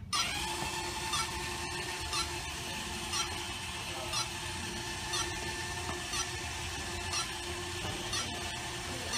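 Small four-wheeled robot platform's electric drive motors running as it rolls along, a steady whine with a faint tick about once a second.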